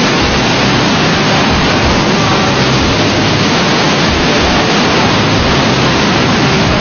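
Loud, steady rushing noise of a military helicopter's turbines, rotor and slipstream in low, fast flight, heard from on board, with an uneven low pulsing underneath.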